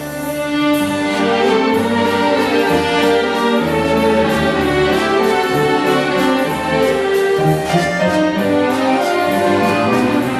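Orchestra playing an instrumental passage of a song with no voice, dense sustained chords with a steady beat.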